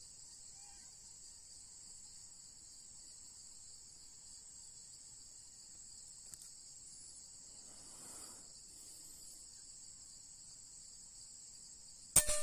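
Steady high chirring of crickets. Near the end comes a single sharp crack from a .177 PCP air rifle firing, a Px120, with brief ringing after it.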